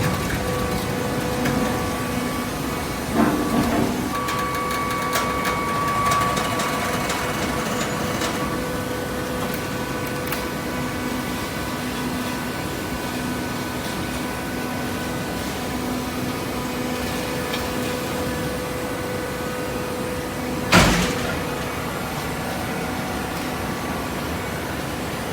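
Hydraulic baler machine running with a steady mechanical hum, with a brief clatter about three seconds in and a single sharp knock near the end.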